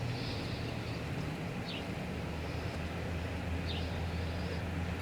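A steady low hum, with two faint short high chirps about two seconds apart.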